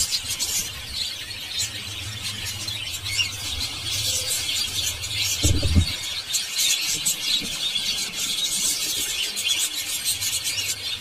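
Aviary flock of budgerigars and cockatiels chattering: a dense, continuous high-pitched twittering of many overlapping short calls. A low steady hum runs underneath, and a brief low thump comes about five and a half seconds in.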